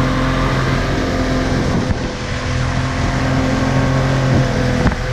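Suzuki DT65 two-stroke outboard running steadily at speed under a rush of wind and spray as a RIB crosses choppy water. The engine dips briefly about two seconds in.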